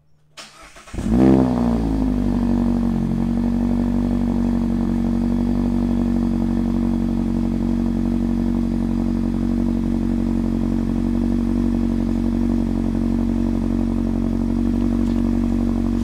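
Mazda ND Miata's four-cylinder engine cold-started through a Goodwin Racing Roadster Sport Super Street single-tip exhaust with no baffle fitted. A brief crank catches about a second in, the revs flare and fall back, and it settles into a steady fast idle.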